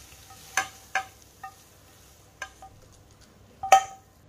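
A spatula scraping and knocking against a nonstick frying pan as the thick, finished coconut modak mixture is scraped out onto a plate: about six sharp knocks, each followed by a brief metallic ring, the loudest near the end.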